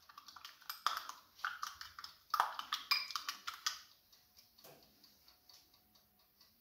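Quick light taps and clicks of a pastry brush dabbing glaze onto shaped bread rolls on a baking tray. After about four seconds they thin out to faint, evenly spaced ticks.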